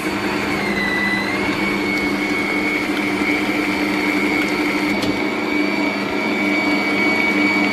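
Bosch stand mixer's motor running with a steady whine as its beater works cake batter in the bowl. The pitch dips and comes back up about a second in as the speed dial is turned.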